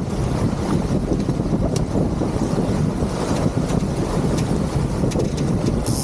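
Wind buffeting the microphone and water rushing past the hull of a sailing yacht under way, with a few faint clicks.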